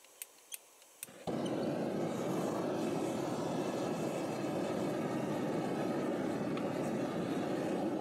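Gas torch burner being lit: a few sharp clicks, then it catches about a second in and runs with a steady hiss.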